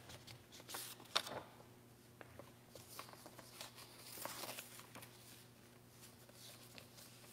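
Faint room tone with a few soft rustles and light clicks, the loudest about a second in, from items being handled on the altar.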